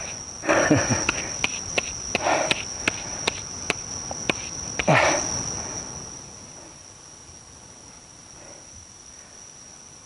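Crickets trilling in a steady high-pitched tone, with several louder scrapes and sharp clicks over the first five seconds, after which only the insects are left.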